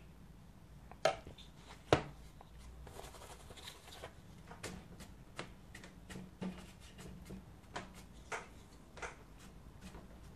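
Two sharp knocks, then a broad flat hake brush swept and dabbed over watercolour paper in short, irregular strokes, each a brief scratchy swish.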